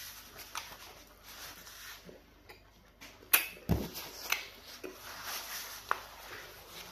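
Close-up eating sounds: chewing with wet mouth smacks and clicks, the sharpest click a little over three seconds in, followed by a short low thump.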